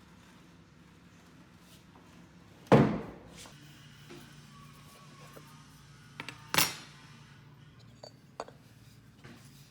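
Two sharp knocks of hard objects being handled, the first the loudest and the second led by a couple of small clicks, followed by a few lighter clicks.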